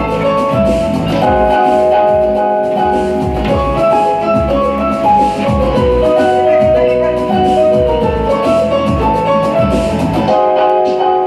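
Background music: a melody of short, clear notes over a steady beat.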